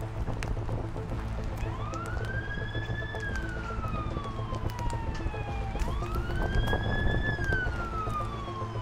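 Outdoor tornado warning siren wailing. Its pitch climbs quickly and then falls away slowly, through two full cycles about six seconds apart, over a steady low rumble.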